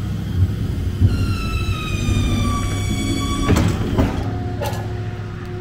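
A hydraulic lift being lowered with its release lever: a squeal that falls slightly in pitch for about two and a half seconds, then a few clunks, over a steady low rumble.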